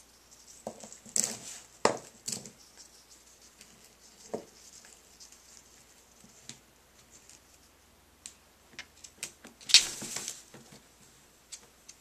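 African grey parrot tearing and rustling toilet paper and picking at a round bristle hairbrush with its beak: scattered light clicks and papery rustles, with the loudest rustle about ten seconds in.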